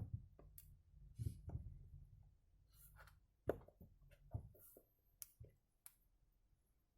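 Faint, scattered clicks and light taps of a small Phillips screwdriver and tiny screws being handled while a smartphone's back housing is unscrewed.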